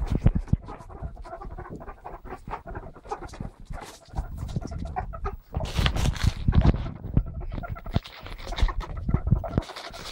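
Pet ferrets playing and scuffling, with their soft clucking 'dook' sounds and pattering on the rug, mixed with bumps and rustles of the phone being handled. The handling noise is loudest about six seconds in and again near the end.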